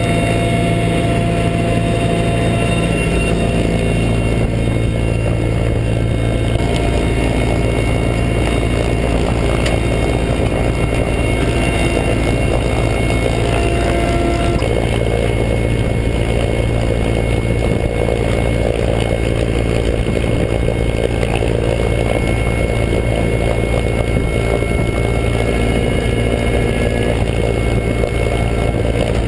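Mi-8 helicopter in flight heard from inside the cabin: the steady, loud drone of its twin turboshaft engines, rotor and gearbox, with several steady high whining tones over it.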